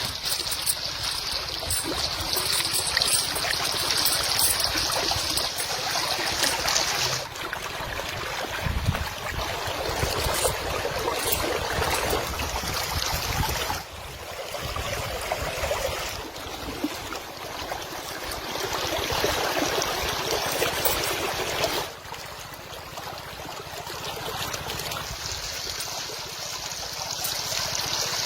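Running water, a steady stream-like trickle and rush, whose level and texture change abruptly three times, about 7, 14 and 22 seconds in.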